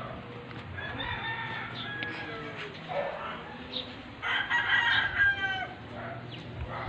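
A drawn-out animal call about four seconds in, lasting over a second with several stacked pitches and dipping slightly at the end. Fainter, shorter calls come a second or two earlier.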